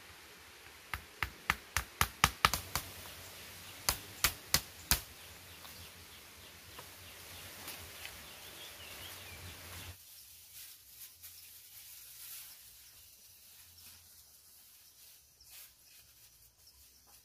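Machete strikes chopping while making grass thatch: a quick run of about eight sharp knocks, then four more a second later. After that only faint small rustles and taps.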